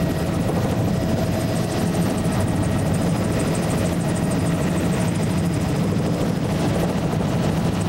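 Steady engine drone of the aircraft, heard from inside its cabin, holding an even pitch and level throughout.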